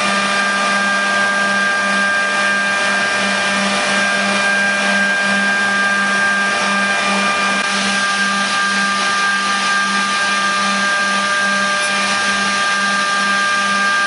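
Griggio GB 5 8RA edge banding machine running with its inverter-driven motors and feeder switched on: a steady motor hum and high whine, the low hum throbbing slightly.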